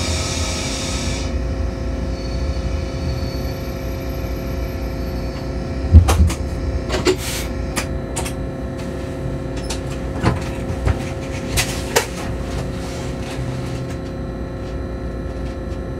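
Electric train's driver's cab, heard from inside while moving slowly: a steady electrical hum with a low rumble. A high hiss stops about a second in, and several sharp clicks and knocks come through the middle, the loudest about six seconds in.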